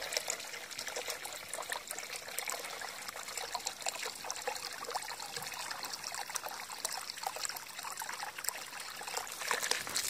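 Steady trickle of water with many small drips.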